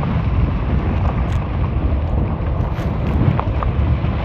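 Wind rushing over the microphone with steady tyre rumble as a fat-tire e-bike rides at about 19 mph on a bumpy road, with a few faint ticks.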